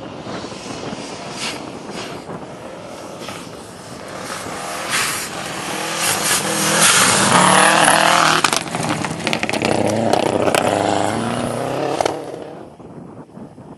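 Subaru Impreza rally car driven flat out on a gravel stage, its engine growing louder as it approaches and passing close by about seven to nine seconds in, with gravel crunching and spraying from the tyres. The sound falls away quickly near the end as the car drives off.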